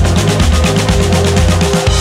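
Background electronic music with a steady drum beat over a bass line.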